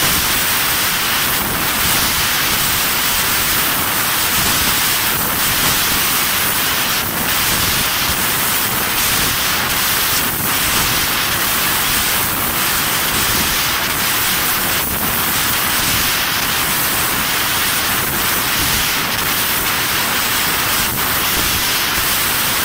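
Steady, loud hiss from a fiber laser tube cutting machine, the kind made by its assist gas and extraction blowing during cutting. It stays even throughout, with a few brief dips.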